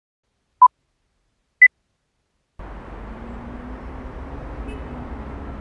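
Film-leader countdown beeps: one short beep under a second in, then a single higher-pitched beep a second later. About a second after that, a steady low city traffic ambience starts suddenly and keeps going.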